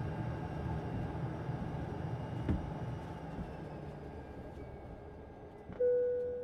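Cabin noise of an ATR turboprop airliner winding down after landing: the steady hum fades and its whining tones slowly fall in pitch as the engines spool down. A single knock sounds about two and a half seconds in, and near the end one cabin chime rings out and fades.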